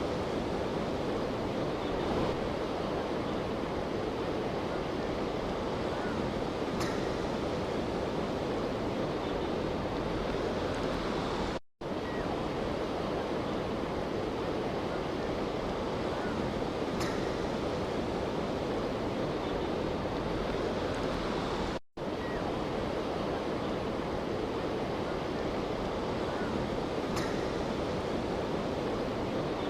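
Steady rushing noise of wind and water, with two very brief dropouts about twelve and twenty-two seconds in.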